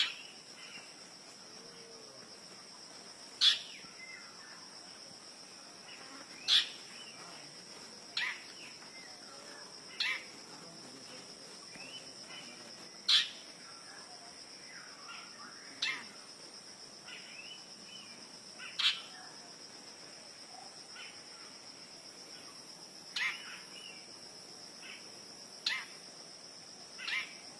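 Long-tailed shrike calling: short, sharp calls, one every two to three seconds, over a steady high-pitched insect drone.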